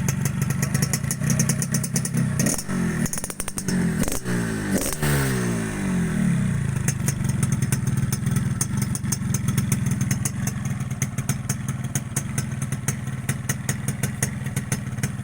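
Yamaha RX-King's two-stroke single-cylinder engine on its standard exhaust, freshly tuned at the carburettor, idling, then blipped up in revs between about three and six seconds in and falling back to a steady idle.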